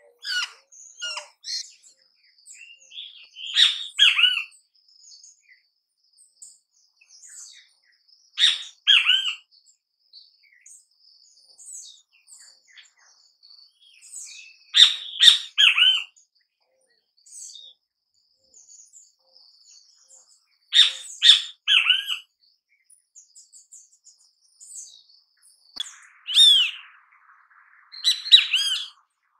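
Great kiskadee calling: a loud group of a few falling notes, given again every five or six seconds, with fainter high chirps of other birds in between.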